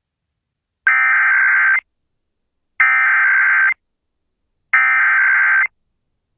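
Emergency Alert System SAME header: three bursts of buzzing digital data tones, each about a second long with about a second of silence between them. They mark the start of an EAS alert, here an immediate evacuation order.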